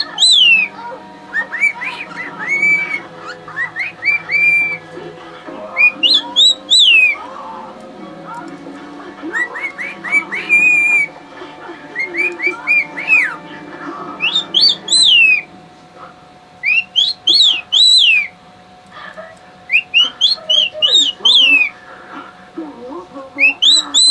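Pet cockatiel whistling a repeated tune: short phrases of clear, sliding whistled notes that rise and fall, coming every couple of seconds.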